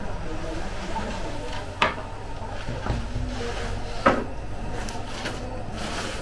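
Wooden bread peel knocking and scraping against the oven's floor and mouth as baked flatbreads are drawn out. Two sharp wooden knocks about two seconds apart, the second the louder, over a steady low hum.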